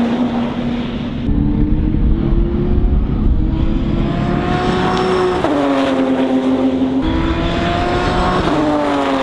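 Race car engine accelerating hard, its pitch climbing steadily through the gears. It drops suddenly at an upshift about five and a half seconds in, climbs again, and shifts once more near the end.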